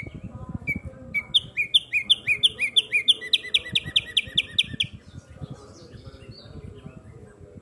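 A caged songbird known as a tumba yegua singing one song: a series of repeated down-slurred whistled notes that starts slowly and speeds up into a fast trill, about four seconds long. A low rumble runs underneath.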